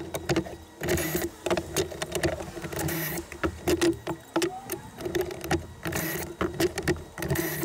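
DeWalt cordless drill boring pocket holes into a pine board through a pocket-hole jig. The motor runs in short repeated bursts, with clicks and knocks from the clamp and board between them.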